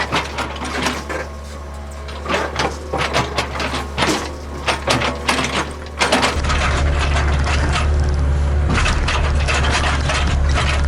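Hitachi ZAXIS75UR compact excavator working: its diesel engine drones steadily under irregular clanks, knocks and scraping from the bucket and tracks on the ground. About six seconds in, the sound cuts to a closer, louder engine drone, with the clatter continuing.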